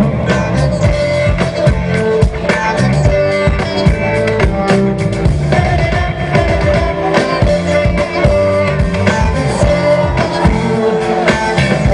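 Live band playing an instrumental break of a Bollywood pop song, with a steady drum-kit beat and guitar.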